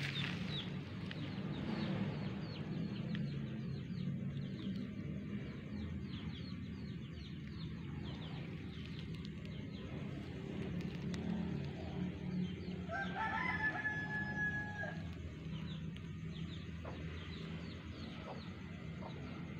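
A rooster crows once past the middle, a single drawn-out call lasting about two seconds, over a steady low hum.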